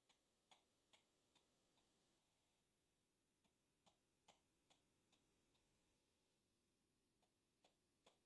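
Near silence, broken by faint sharp clicks about two and a half a second, in runs of five or six with short pauses between runs.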